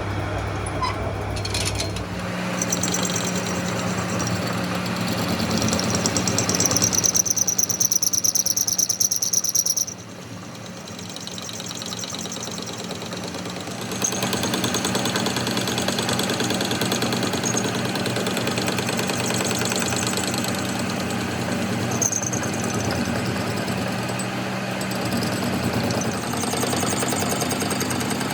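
A machine running with a steady hum, harsher and louder for a few seconds before dropping off about ten seconds in, then picking up again about fourteen seconds in.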